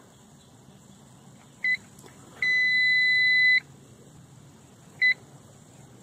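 Extech EX655 clamp meter beeping as it is set to measure a capacitor's capacitance. A short beep, then a longer one lasting about a second, then another short beep, all at the same high pitch.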